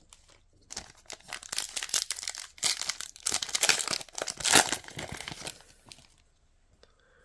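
Foil wrapper of a trading-card booster pack being torn open and crinkled: a dense run of crackling that starts about a second in and dies away near the end.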